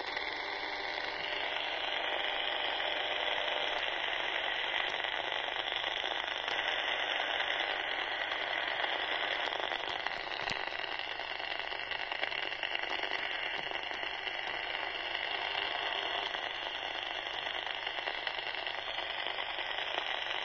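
Eurosonic EU40 27/81 FM CB handheld's speaker hissing steadily with open-squelch receiver noise, no station coming through. The hiss brightens about a second and a half in.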